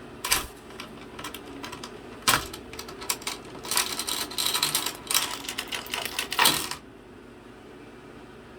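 A cockatoo's beak working a metal door lock: a few separate clicks, then a dense run of rapid clicking and rattling for about three seconds that ends with a loud clack and stops abruptly.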